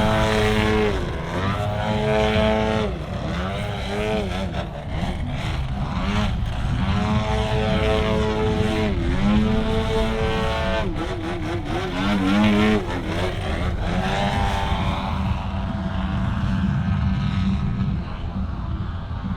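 Engine and propeller of an Apex Aerotech 102-inch Slick 360 RC aerobatic plane in flight. The pitch rises and falls again and again as the throttle is worked through 3D aerobatic manoeuvres.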